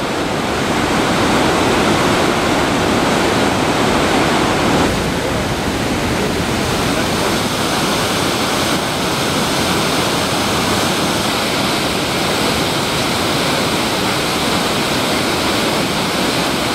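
Mountain river waterfall pouring through a narrow rock gorge and over boulders: a loud, steady rush of falling white water, shifting slightly in tone about five seconds in.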